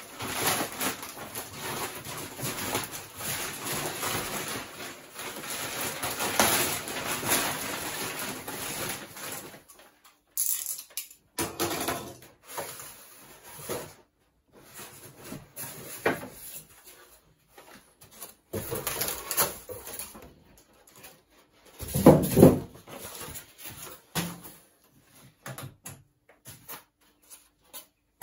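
Clear polythene wrapping crinkling and rustling as it is pulled off a washing machine. After that, polystyrene packing is worked loose with scattered short knocks and scrapes, and one heavy thump about two-thirds of the way in.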